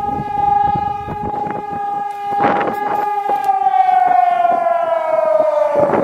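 Air raid siren sounding a steady wailing tone, then starting to wind down, falling slowly in pitch from about three seconds in. Short gusts of noise run over it, the strongest about two and a half seconds in.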